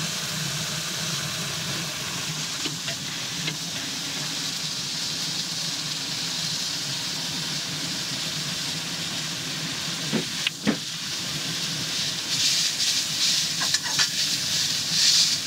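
Spiralized courgette and carrot sizzling in a hot wok, a steady frying hiss. About ten seconds in come two sharp knocks, and near the end the sizzle pulses louder as a metal spatula stirs and tosses the vegetables.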